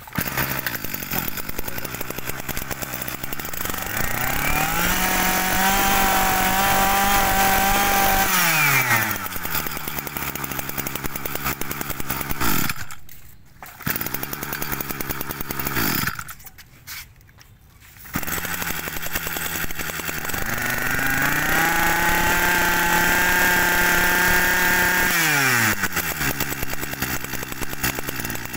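Small 26cc two-stroke brush cutter engine pull-started and idling, then revved to a high steady speed for about four seconds and let back down to idle before being switched off. This happens twice, with a short run in between; the engine runs crisply.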